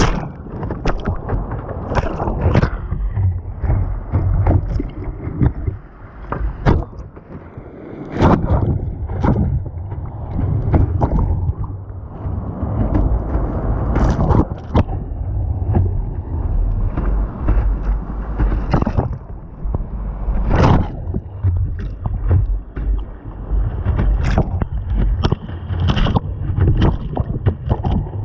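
Whitewater rushing and churning around a slalom kayak, with frequent sharp splashes from paddle strokes and waves hitting the boat. Wind buffets the camera's microphone.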